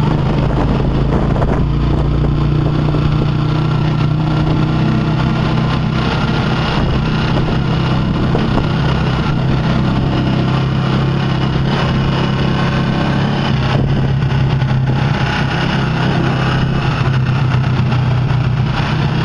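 Motorcycle engine of a tricycle (motorcycle with passenger sidecar) running steadily on the move, heard from inside the sidecar, with a steady low hum and road noise.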